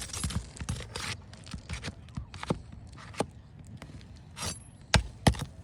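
Roofing nails being pried out from under asphalt shingles: a run of scrapes and small clicks from the tool and shingles, with two sharp knocks close together near the end.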